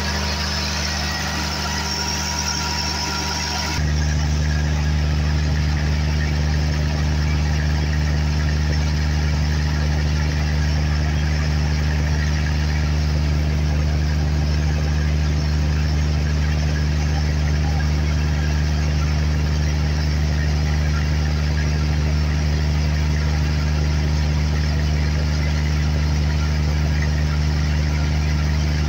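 Cummins diesel generator engine running steadily, its turbocharger and exhaust glowing red hot. About four seconds in, the sound changes abruptly from a hum with a high whine on top to a louder, deeper, even drone.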